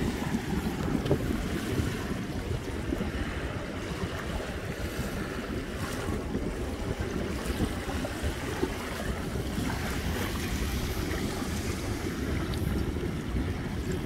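Small sea waves washing over a shallow sandy shore in a steady, continuous wash, with wind rumbling on the microphone.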